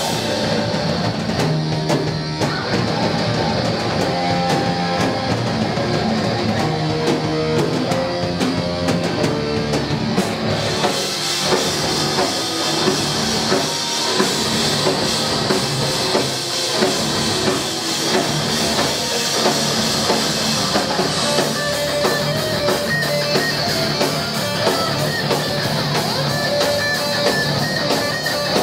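Heavy metal band playing live: distorted electric guitars and bass over a drum kit. About ten seconds in, the cymbals come in much harder.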